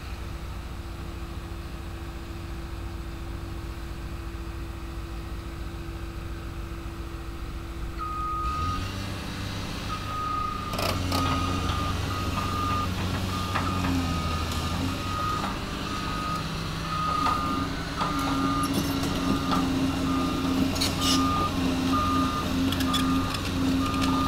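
Back-up alarm on heavy construction equipment beeping at a steady rate, starting about a third of the way in, over the running diesel engines of excavators. The engine noise grows louder as the beeping goes on, with a few sharp metallic clanks.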